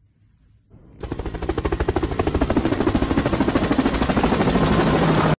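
A kitten making a loud, fast rattling sound, a rapid string of even pulses with a low pitched tone under it. It starts about a second in, after a near-silent moment.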